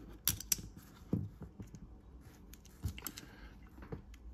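Scattered small clicks and taps of plastic model parts being handled as a model railcar's bogie is worked apart, about half a dozen irregular clicks.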